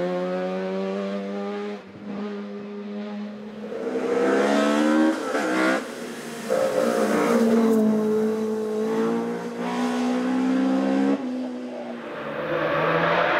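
Hillclimb race car engine under hard acceleration, its pitch climbing and falling through several gear changes, with brief dips in level at each shift or lift.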